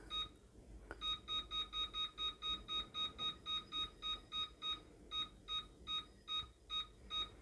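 Tefal air fryer's touch control panel beeping with each tap as the cooking time is stepped up and down: a quick run of short, identical beeps, about four a second, coming a little more unevenly near the end.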